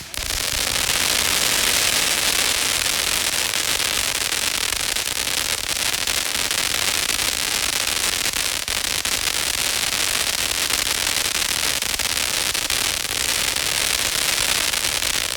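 TNT Justice 500-gram fountain firework in its crackle finale: a dense, continuous mass of crackling pops, steady and loud.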